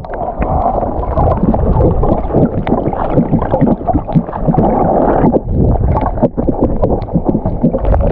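Muffled, irregular sloshing and gurgling of seawater picked up by an action camera held underwater, with the high end cut off.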